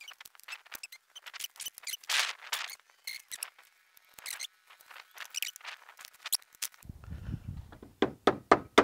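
Irregular plastic clicks and scrapes as a Ford F-150's plastic radiator support cover is pressed down and its push-pin retainer clips are worked back into place, with a run of louder knocks near the end.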